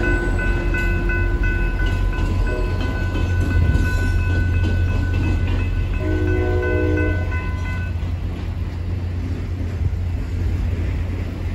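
Grade-crossing warning bell ringing rapidly until it stops about eight seconds in, over a diesel locomotive's low engine rumble. The locomotive's horn sounds one short chord about six seconds in.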